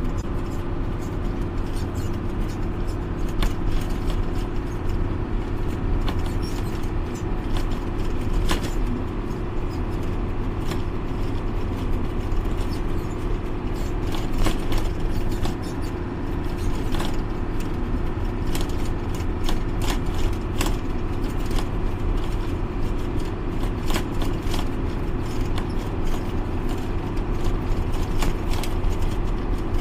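Truck cab interior at highway cruising speed: a steady engine and road drone with a constant hum, and many small rattles and clicks from the cab.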